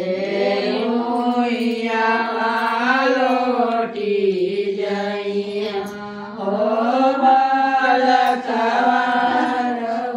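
Women singing a traditional devotional song to the goddess Devi Mata together, in long drawn-out chanted lines.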